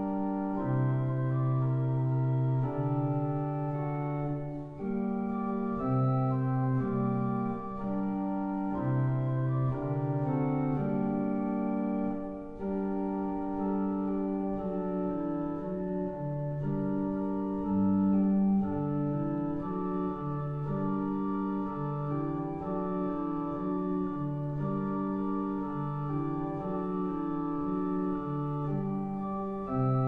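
Church organ playing a Christmas tune in held, sustained chords over a moving bass line.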